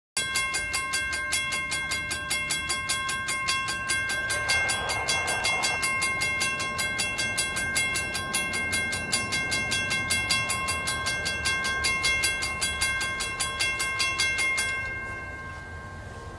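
Mechanical railroad crossing bell ringing with rapid, evenly spaced strokes, the warning that a train is approaching the crossing. The ringing stops abruptly near the end.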